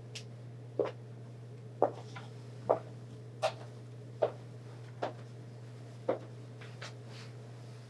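A steady low hum with about nine soft knocks, slightly uneven and roughly one a second.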